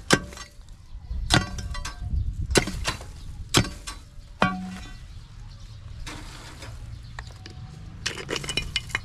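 Metal tools knocking against stones and concrete while digging at a snake's hole: sharp clanks about once a second, several with a short metallic ring, then a quick run of clinks near the end.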